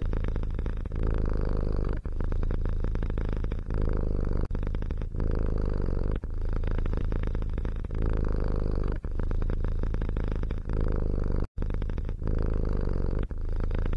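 A cat purring steadily in long breaths, with a short break between each breath. The sound cuts out for an instant about two-thirds of the way through.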